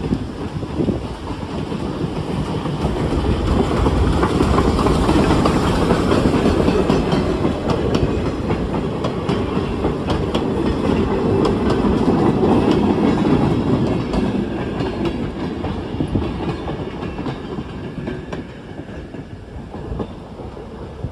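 A train passing close by: the rumble and clatter of its wheels on the rails swell over the first few seconds, hold, and then fade away in the last several seconds.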